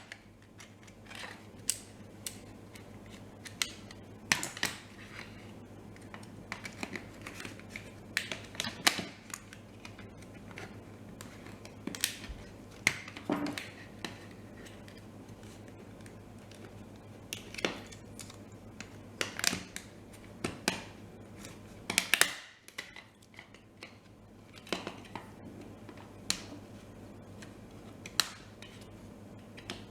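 Irregular light clicks and taps of small plastic remote-control parts and hand tools being handled during disassembly and cleaning, over a faint steady low hum.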